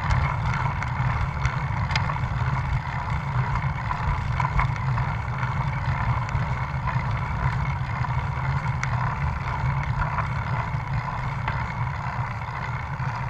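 Steady wind rumble on the microphone and road and tyre noise from a moving road bicycle with a camera mounted on it, with occasional small clicks and rattles.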